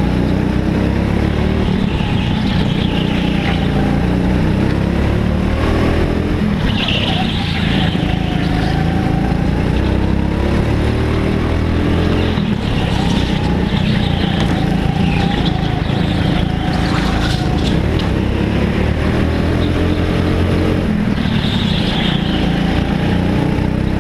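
Go-kart engine running at racing speed, its pitch climbing and then dropping again several times as the kart speeds up and slows for the corners, with the nearby kart's engine close behind it.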